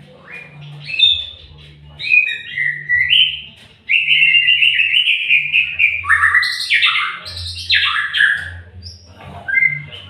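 White-rumped shama (murai batu) singing a run of varied, fast whistled and rattling phrases. It starts with short phrases and turns into a dense, loud outpouring from about four seconds in.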